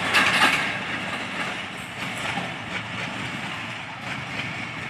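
Pakistan Railways passenger train's coaches clattering past on the rails, with a few sharp wheel clicks at the start. The sound then fades steadily as the last coach moves away.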